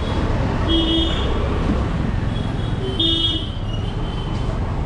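Street traffic noise with a vehicle horn honking twice, briefly about a second in and again about three seconds in.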